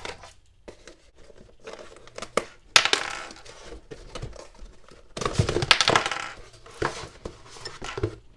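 Toy packaging being handled: irregular plastic clicks and clatters with rustling of plastic and cardboard. The loudest clatter comes just under three seconds in, and there is a busier patch of handling noise around five to six seconds in.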